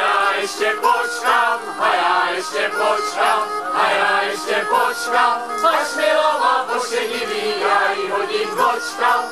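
Men and women singing a lively Chodsko folk song in chorus, with a small folk band of clarinets and double bass playing to a regular beat.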